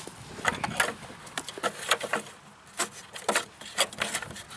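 Irregular sharp clicks and scrapes of pliers and metal parts as the old self-propel drive cable of a Toro Personal Pace mower is forced loose at the transmission.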